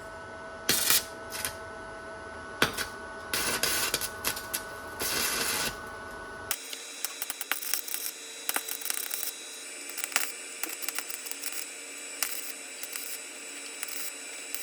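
Welder laying short welds on a steel patch panel: several crackling bursts, each half a second to a second long, over a steady faint hum. After about six and a half seconds comes lighter, irregular ticking and crackling.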